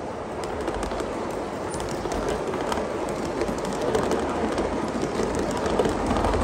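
Gauge 1 model train rolling along the track: a steady rumble of wheels on rail that grows louder as it nears, with many small clicks and rattles over the rail joints.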